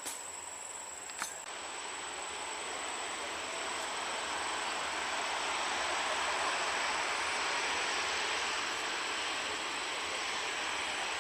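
Jet airliner engine noise, a steady rush that swells gradually over the first several seconds and then holds, as an aircraft draws nearer. A short click comes about a second in.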